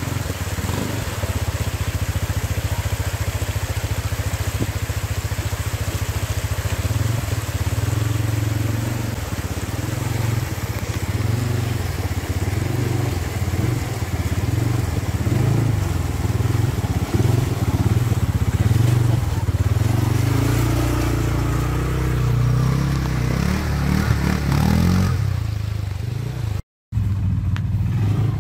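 CFMoto ZForce 950 side-by-side's V-twin engine running steadily under load as it crawls over a rough, wet trail, the pitch wavering with the throttle. The sound cuts out completely for an instant near the end.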